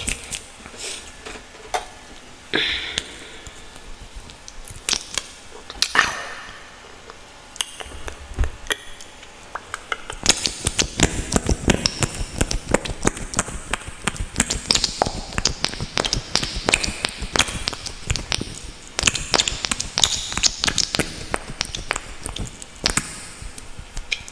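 Close-miked clicks and taps, sparse at first, then a dense run of rapid sticky clicks and crackles from about ten seconds in, from a lip gloss being handled and applied.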